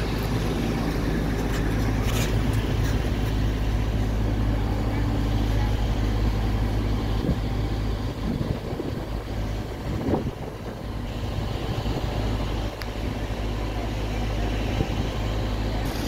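Heavy equipment engine running at a steady idle, a low continuous hum that grows a little uneven midway.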